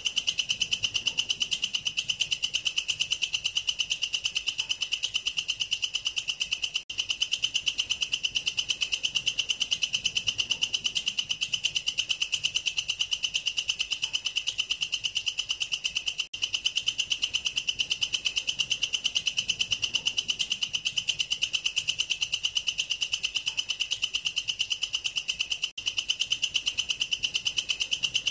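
A katydid (bush cricket, family Tettigoniidae) singing a continuous, rapid, high-pitched buzzing trill, the 'creeeet' call. It breaks off for an instant three times, about every nine and a half seconds.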